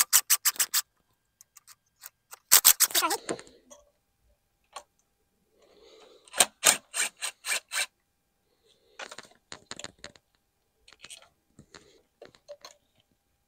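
Cordless impact driver hammering in five short bursts of rapid clicks as it loosens the E12 inverted-Torx bolts of an EGR valve.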